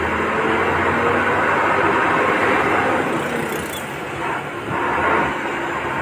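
Dump truck driving on a highway, its diesel engine and road noise heard from inside the cab; briefly quieter about four seconds in.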